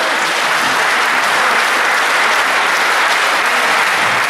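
Table tennis spectators applauding after a rally: dense, steady clapping with no let-up.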